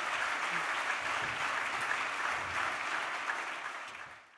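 Audience applauding, a dense even clapping that fades out near the end.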